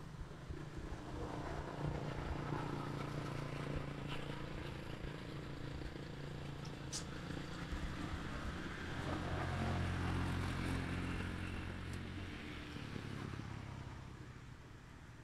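A motor vehicle engine running, its hum swelling about ten seconds in and fading toward the end, as of a vehicle passing.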